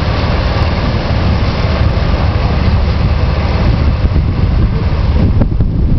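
Steady rumble of a vehicle driving along a street, heavy in the low end.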